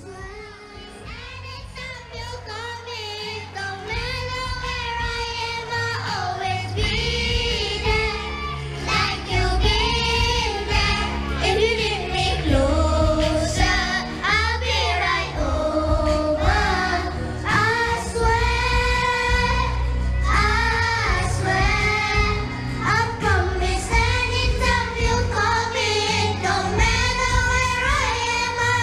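Children singing an English song together in unison over a backing track with a steady bass line. The singing is quieter at first and grows louder about four seconds in.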